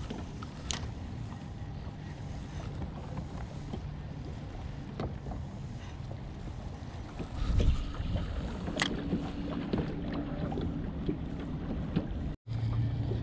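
Wind on the microphone and small waves lapping against a small fishing boat, under a low steady hum. A few sharp clicks and a dull thump about seven and a half seconds in stand out, and the sound drops out for a moment near the end.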